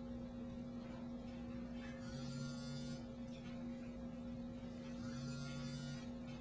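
Steady electrical mains hum: room tone under a silent sign-language recording, with two faint soft swishes partway through.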